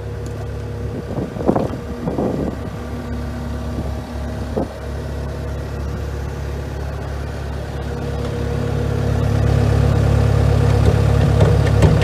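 Diesel engine of a Cat 299D2 compact track loader idling steadily, with a few knocks in the first few seconds; the engine grows louder about two-thirds of the way in.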